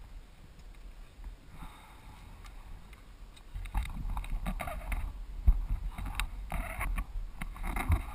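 Low rumble and buffeting on a helmet-mounted camera's microphone as the motorcycle rolls slowly, with irregular thumps, getting louder about three and a half seconds in.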